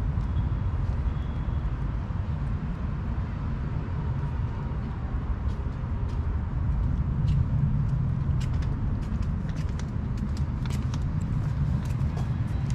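A cat chewing and licking food from a plate: small quick clicks, thickening from about five seconds in, over a steady low rumble of traffic.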